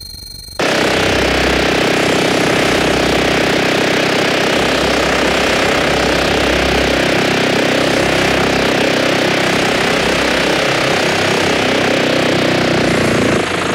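Loud, harsh, machine-like noise with a dense rattling buzz. It cuts in suddenly about half a second in and holds steady, changing just before the end.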